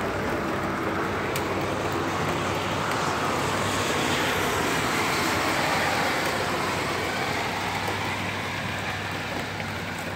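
A car passing on a rain-soaked road, its tyre hiss on the wet asphalt swelling to a peak midway and then fading away.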